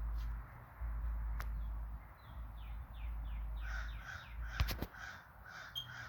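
Crows cawing outside: a quick run of short caws starting about two seconds in and going on to the end, about two or three a second. A low rumble is loudest in the first two seconds, with a couple of sharp clicks near the middle.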